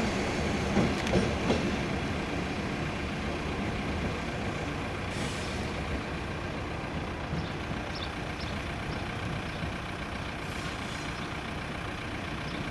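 SNCB class 53 diesel locomotive running as it draws away along the yard track, its engine sound fading slowly. A few faint, short high squeaks come a little past the middle.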